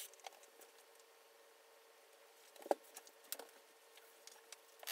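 Quiet room with a faint steady hum and a few scattered light taps and clicks; one sharper tap comes a little under three seconds in.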